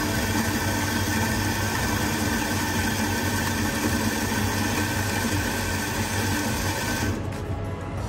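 Electric espresso grinder running steadily with a constant motor whine, then cutting off about seven seconds in. It is purging grounds left over from the previous, coarser setting after being adjusted finer.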